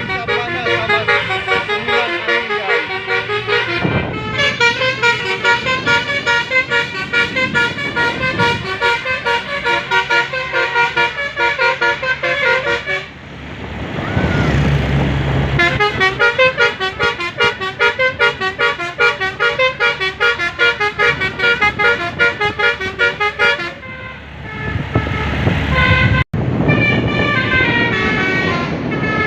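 Basuri 'telolet' multi-tone musical horn playing fast melodies in quick runs of notes. It breaks off twice, about halfway through and again near the end, leaving a few seconds of engine and road noise each time.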